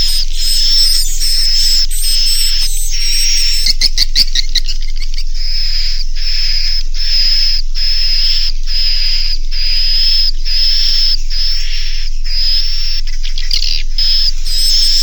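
Recorded swiftlet roosting call ('suara inap') played as a lure for a swiftlet house: high, twittering chirps repeating about one and a half times a second, with a quick run of rapid clicks about four seconds in. A faint steady electrical hum lies underneath.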